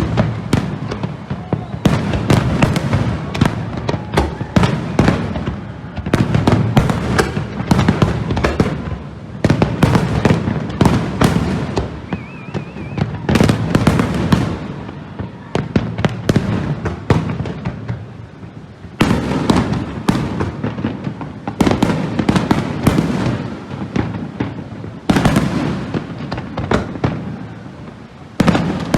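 Fireworks display: a dense, rapid barrage of bangs and crackling, with a few short lulls between volleys.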